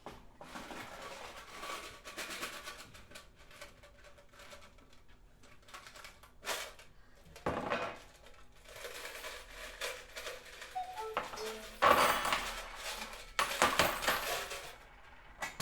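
Sparse instrumental music with bursts of metallic clattering, loudest a few seconds before the end, and a few short high notes in between.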